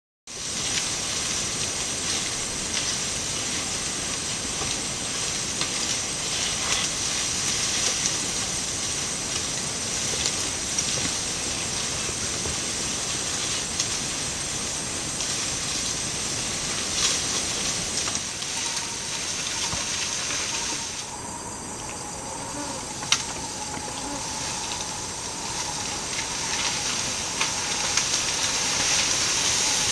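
A steady, high-pitched chorus of insects buzzing, with a few faint clicks scattered through it. About two-thirds of the way in, the high buzz drops away for a few seconds while a lower steady tone carries on, then the high buzz returns.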